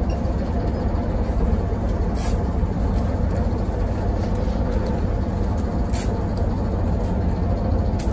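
Cabin noise inside a ZIU-682G trolleybus on the move: a steady low rumble from the running gear and body, with two brief sharp sounds, about two and six seconds in.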